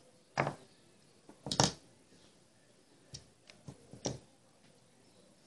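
Handling noise: about five short rustles and knocks from the fabric cushion being handled close to the microphone. The loudest is a double one about a second and a half in.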